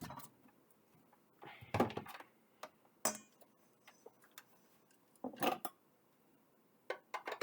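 A handful of separate clinks and knocks of kitchenware, about five spread over several seconds, as the bowl and attachment of a stand mixer are handled and fitted. The mixer's motor is not running.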